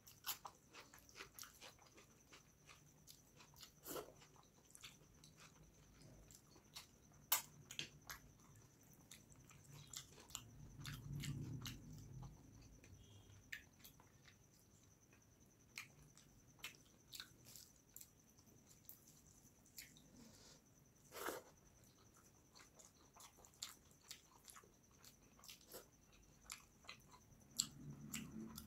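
Close-miked eating sounds: a person chewing a mouthful of rice and fish curry, with soft scattered wet clicks and smacks of the mouth and of fingers mixing the rice. A faint steady high whine runs underneath.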